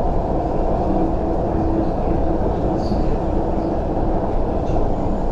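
Interior running noise of an MTR TML C-train at speed: a steady rumble of wheels on rail heard inside the carriage, with a faint low steady tone in the middle.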